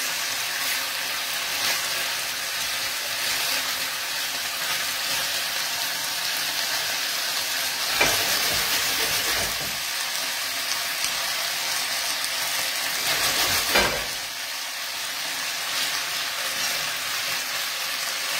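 Chicken rolls sizzling steadily as they fry in a pan, with two louder knocks of a utensil against the pan, about eight seconds in and again near fourteen seconds.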